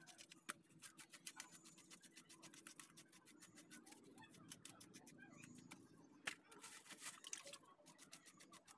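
Faint, rapid scraping of a knife blade across a whole fish, stripping off its scales in quick short strokes, several a second.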